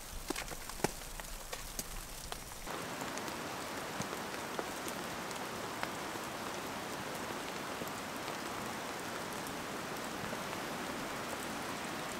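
Drops tapping one by one on a nylon tent fly, heard from inside the tent. About two and a half seconds in, this gives way to a steady, even hiss of precipitation falling outdoors, with an occasional tap.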